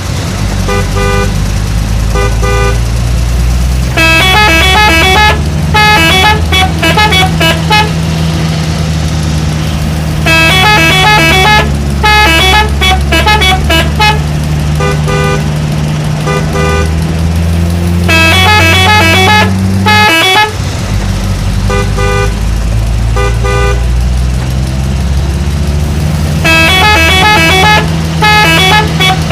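Telolet horns playing quick stepping multi-note melodies in repeated bursts over a steady truck-engine drone. The drone slowly rises in pitch, cuts out briefly about two-thirds of the way in, then returns.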